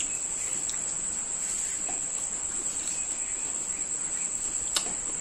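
Crickets chirping in a steady, high-pitched, unbroken trill, with a few faint clicks of chewing.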